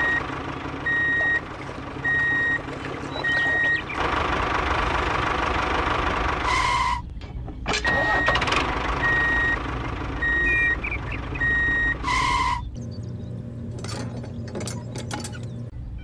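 Diesel engine running steadily under a reversing beeper that beeps about once a second, in two runs of beeps. Two short hisses like an air brake release come in between, and after the second hiss the engine runs quieter with a few clicks.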